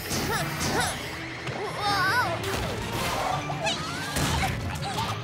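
Cartoon slapstick sound effects: crashes and whacks mixed with wordless yells and shrieks from the characters, with several short wavering cries throughout.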